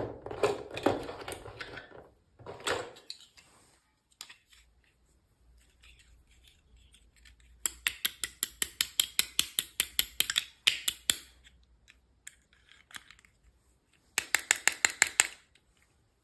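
Several bursts of rapid, even clicking, about eight to ten clicks a second, the longest lasting about three seconds, with quiet pauses between.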